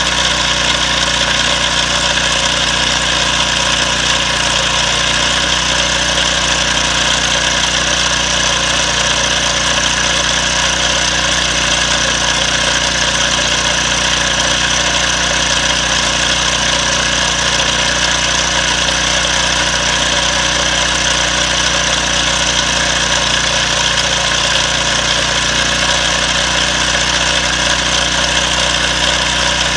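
Small propane-fuelled engine with a GEET fuel processor, idling steadily.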